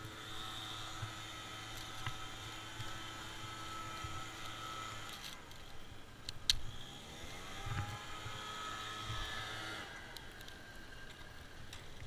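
An engine running at a steady pitch drops out about five seconds in. It comes back with a rising pitch and stops about ten seconds in. A single sharp click a little after six seconds is the loudest moment.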